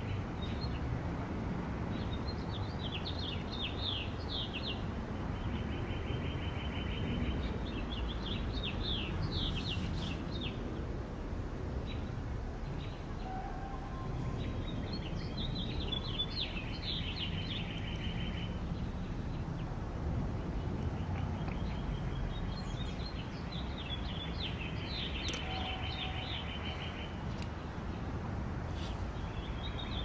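A songbird singing repeated high phrases every few seconds, each a quick run of falling notes ending in a steady, fast trill, over a constant low background rumble.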